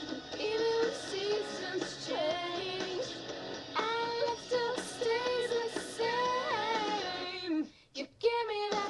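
A girl singing a pop song along with its recorded music track. The sound drops out briefly near the end, then picks up again.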